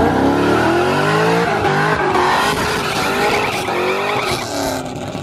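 A car doing a burnout: the engine revs up over the first second or so and is held at high revs while the rear tires spin and squeal.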